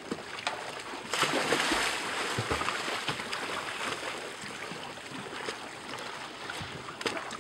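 Sea water sloshing and splashing against a boat, with a louder rush of water about a second in that lasts a second or so, and a few light knocks.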